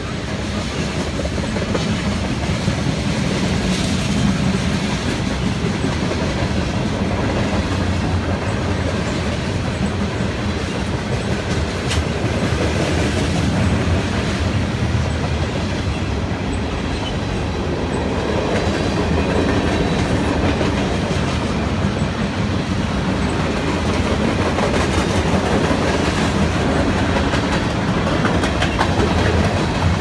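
Freight cars of a long mixed manifest train rolling past: the steady noise of steel wheels running on the rails, a little louder near the end as the cars pass close by.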